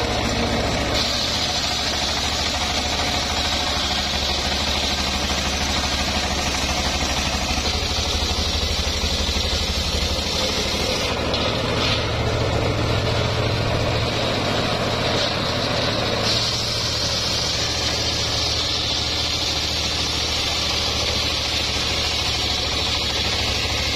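Homemade circular sawmill running, its engine droning steadily while the spinning blade rips lengthwise through a log. A higher cutting noise drops away for a few seconds midway and picks up again.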